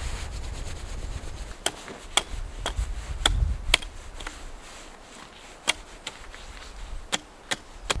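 Hatchet chopping a wooden stick: about nine sharp, irregularly spaced knocks of the blade on the wood.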